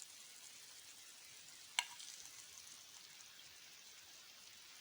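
Garlic cloves in olive oil sizzling faintly and steadily in a small pan off the heat, with one sharp click about two seconds in.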